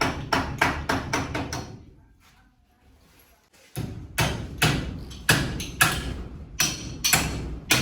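Repeated hard knocks, about three a second, like hammer blows on wood. They stop for about two seconds in the middle and then start again.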